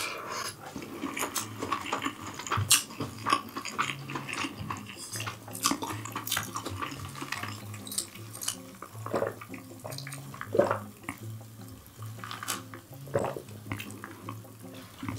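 Close-miked eating: chewing and mouth sounds, with many short clicks of cutlery against the dishes.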